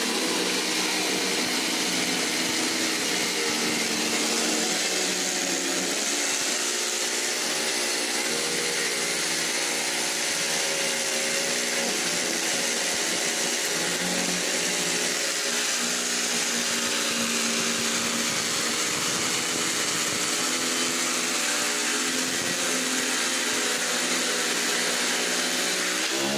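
Corded electric jigsaw running steadily as its blade cuts a curve through white laminated particleboard.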